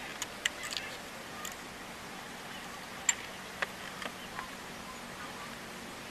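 A few light, sharp clicks and taps from handling tools and parts during a spark plug change, over a steady faint hiss: a cluster in the first second, then single clicks about three, three and a half and four seconds in, the one at three seconds the loudest.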